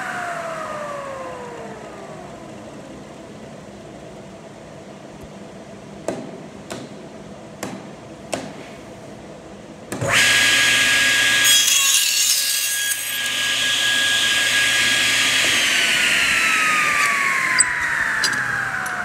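Table saw blade winding down with a falling whine, then a few sharp knocks as the wooden tenoning jig is shifted. About ten seconds in the saw starts abruptly and runs with a steady whine while it cuts waste from a bridle-joint tenon. It is switched off near the end and winds down again, its pitch falling.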